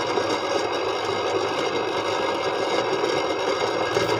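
Electric countertop blender running steadily, puréeing shallots, garlic, ginger and galangal in cooking oil into a smooth spice paste.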